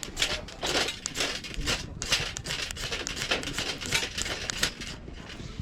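A metal match (ferrocerium rod) being struck repeatedly, with a series of harsh rasping scrapes at about two a second, throwing sparks to light tinder.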